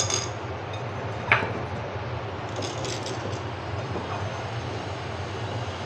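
Small peeled onions being dropped by hand into a glass bowl of vinegar water: a few light knocks and a brief ringing clink about a second in, over a steady low hum.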